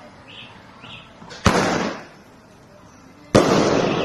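Two loud firework bangs about two seconds apart, each sharp crack trailing off in a short echo. Two short high beeps sound in the first second.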